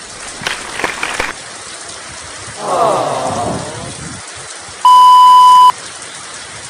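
Sound-effect clips playing back: a few short noisy sounds, then a warbling sweep about halfway, then a loud, steady censor-style beep lasting just under a second near the end, over a steady hiss.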